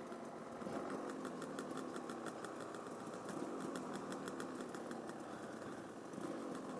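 Dirt bike engine idling steadily with a fast ticking, its idle set too high according to the rider.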